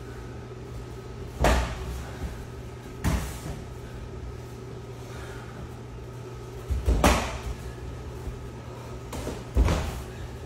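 Strikes landing in stand-up sparring: four sharp thumps of gloved punches and shin-guarded kicks, the third a quick double, over a steady background hum.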